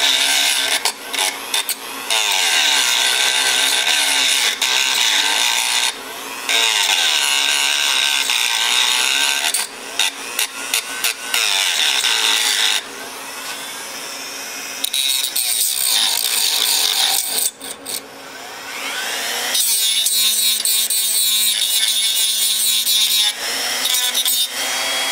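A Dremel rotary tool runs at high speed, its small grinding bit held lightly against the fins of a Briggs & Stratton engine flywheel to roughen and clean the metal. The grinding comes and goes as the bit is touched to the metal and lifted off, and the pitch changes about three-quarters of the way through.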